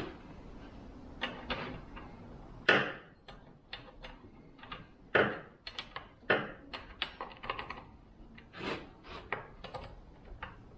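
Irregular metallic clicks, clinks and knocks of a chainsaw's bar and chain being handled and fitted back onto the saw, with a few louder knocks among them.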